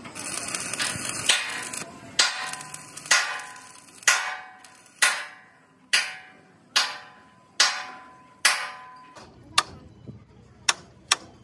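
Stick-welding arc crackling for about the first second, then a hammer striking the steel truck frame about once a second, each blow ringing briefly. Near the end the blows turn into shorter, sharper knocks.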